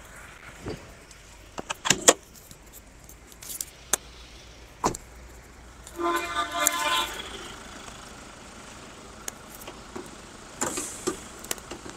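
Sharp clicks and knocks of a Hyundai Santa Fe's door and bonnet latch being worked as the bonnet is opened, with a brief pitched tone lasting about a second about halfway through.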